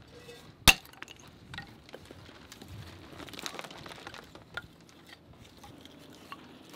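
A hatchet chops once, sharp and loud, splitting a stick of kindling on a wooden chopping block about a second in. Lighter knocks and clatter of dry split sticks being picked up and handled follow.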